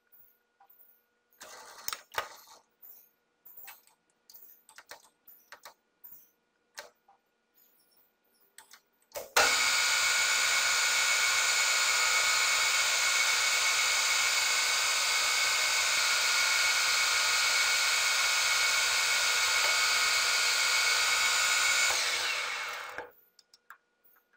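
Scattered light clicks and knocks of metal parts being handled. About nine seconds in, a Nardini Mascote metal lathe starts suddenly and runs at a steady pitch with a whine while turning a pin. About thirteen seconds later it is switched off and spins down over about a second.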